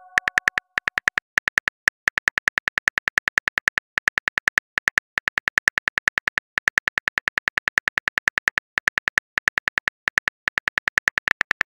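Phone keyboard clicks in a fast, steady run of about eight taps a second, with a few short breaks, as a text message is typed into the reply box.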